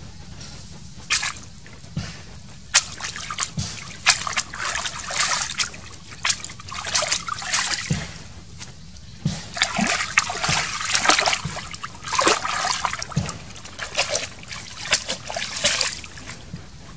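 Hands splashing and sloshing in a shallow stream, washing food, in many irregular bursts, with water trickling and dripping.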